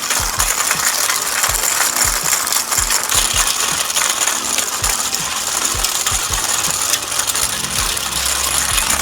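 Homemade model road roller built from water cans, its small DC motor running and the roller rattling steadily, with irregular low knocks.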